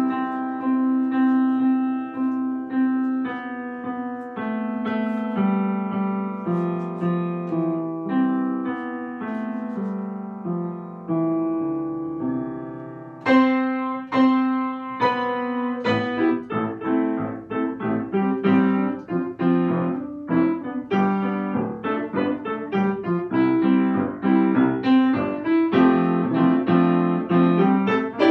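Solo piano played by hand: a slow melody over held chords, with a loud chord struck about halfway through, after which the playing turns busier with quicker notes.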